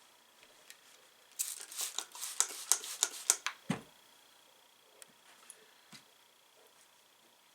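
Fabric and tools being handled at a quilting table while seams are pressed open: a quick run of rustles and sharp clicks about a second and a half in, lasting about two seconds, ending with a thump as something is set down.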